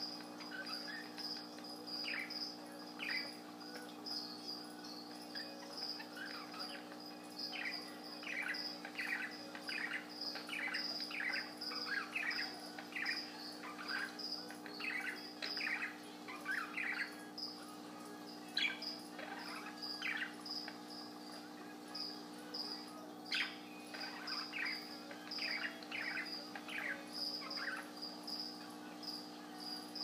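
Budgerigar chattering softly in runs of quick, short chirps. Under it are a steady, fast, high-pitched pulsing chirp and a low steady hum.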